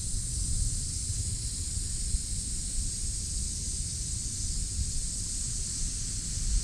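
Cicadas droning in a steady, unbroken high-pitched chorus, with wind rumbling on the microphone underneath.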